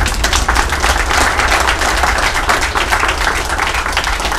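A small crowd applauding, a dense patter of many hands clapping.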